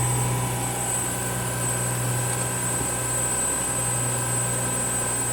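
Tsugami S206 CNC Swiss-type lathe running with its spindle stopped and the C-axis engaged: a steady low electrical hum with a faint high whine.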